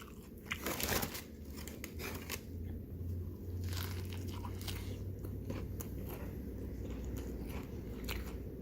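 Close biting and chewing of a crispy fried-chicken soft taco, with scattered crunches from the fried coating.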